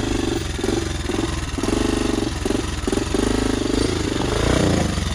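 Dirt bike engine running at low revs as the bike is eased down a steep, rocky slope, its note coming and going in short bursts of throttle.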